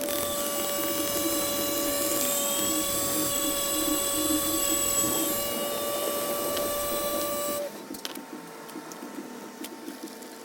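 Small electric rotary polishing tool running at a steady high pitch while buffing an acrylic watch crystal, switched off abruptly about three-quarters of the way through. Faint rubbing follows.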